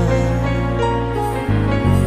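Instrumental stretch of a Telugu film song: held chords over a steady bass line, with no singing. The bass drops out briefly about three-quarters of the way through, then comes back.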